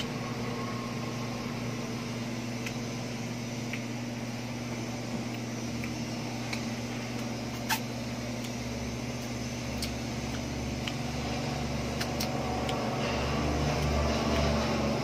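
Steady mechanical hum with a few faint ticks and a sharper click about halfway through; a low rumble swells near the end.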